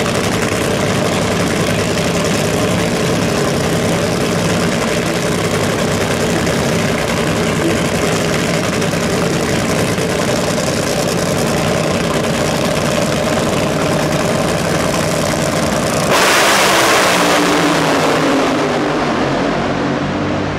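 Two nitromethane-burning Top Fuel Funny Car engines, supercharged Hemi V8s, idling loudly and unevenly side by side at the starting line. About three-quarters of the way through they suddenly go to full throttle on the launch, and the noise fades as the cars run away down the strip.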